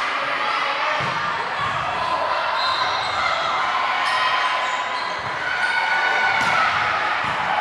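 Volleyball rally in an echoing gymnasium: the ball struck sharply several times by players' hands and forearms, over a steady hubbub of players and spectators calling out.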